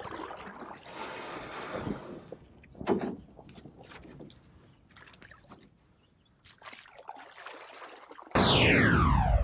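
Scattered clicks and soft trickling noise, then about a second before the end a loud synthesized logo sting starts abruptly: several tones falling in pitch together.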